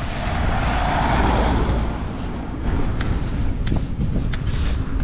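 A road vehicle passing, its noise swelling over the first two seconds, over low wind rumble on the microphone, then a few scattered short clicks.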